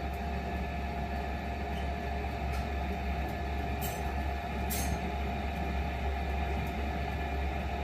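Buck 81 wood stove's blower fan running steadily, a constant hum with a low rumble, with a couple of faint clicks from the fire about four and five seconds in.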